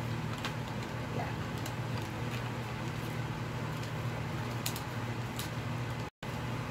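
Steady low background hum under an even hiss, with a few faint soft clicks scattered through it. The sound drops out completely for a moment near the end.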